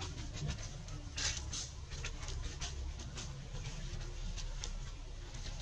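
Outdoor ambience: a steady low rumble with irregular short clicks and rustles scattered through it.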